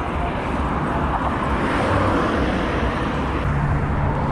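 Steady rushing noise of wind and road traffic picked up while riding a bicycle through city streets; a steady low hum joins it about three and a half seconds in.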